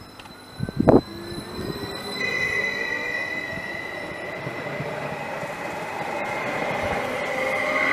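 An approaching train with its wheels squealing in a steady, high tone that grows louder as it nears. A brief loud thump comes about a second in.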